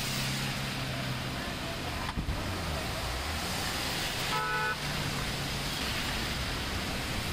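Traffic driving through floodwater: a steady wash of water and engine noise. A short car horn toot sounds about four and a half seconds in.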